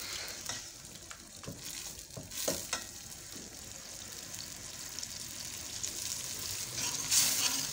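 Onion and tomato masala sizzling in hot oil in a stainless steel karahi while it is fried down (bhuna), with a few scrapes and knocks of a steel ladle in the first seconds. The sizzle gets louder near the end.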